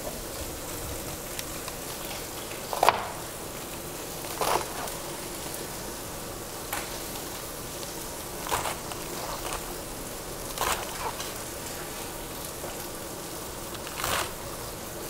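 Steak sizzling steadily in a cast-iron skillet, with about six separate knocks of a Chinese cleaver chopping romaine lettuce on a cutting board, the loudest about three seconds in.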